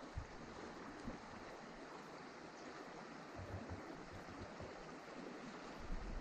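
Steady rushing of a shallow river running over a rocky bed, with a few low buffets of wind on the microphone partway through and near the end.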